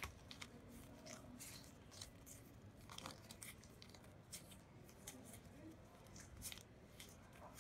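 Faint flicking and rustling of trading cards being slid one by one from the front of a hand-held stack to the back, in short scattered ticks.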